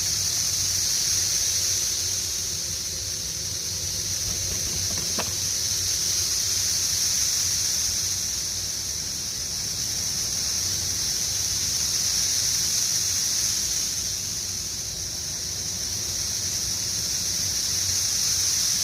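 Chorus of periodical cicadas, the 13-year and 17-year broods, a massed, high-pitched, steady shrill drone. It swells and fades in slow waves every five or six seconds.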